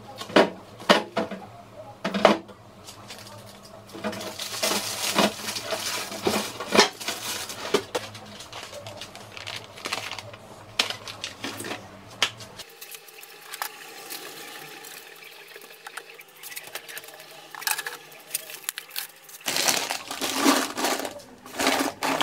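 Groceries being put away in a fridge and freezer: plastic bags and packaging rustling, with clicks and knocks as items are set on the shelves and in the drawers. Several sharp knocks come in the first few seconds, the rustling is quieter in the middle and louder again near the end.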